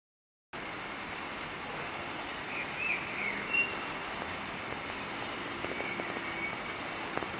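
Outdoor garden ambience that cuts in about half a second in: a steady background rush, with a few short bird chirps around three seconds in.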